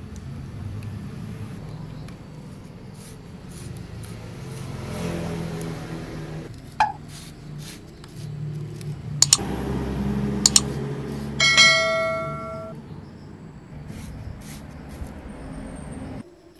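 Scattered clicks and taps of hands working on a bare generator stator core over a steady low background hum. About eleven seconds in comes a bell-like ringing tone that lasts just over a second.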